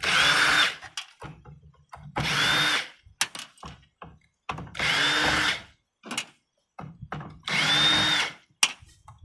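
Power drill run in four short bursts about two seconds apart. Each burst spins up to speed and winds down again.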